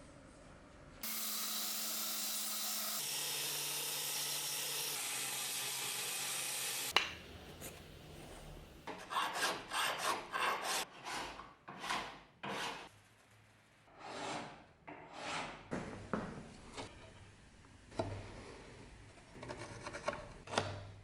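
A power tool runs steadily for about six seconds, then stops. It is followed by a long series of hand filing strokes on the axe, one or two rasps a second.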